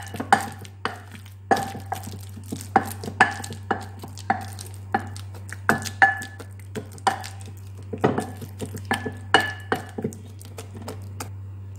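Wooden masher mashing bananas in an enamel-lined pot, knocking against the pot bottom about two to three times a second, each knock with a short ring from the pot.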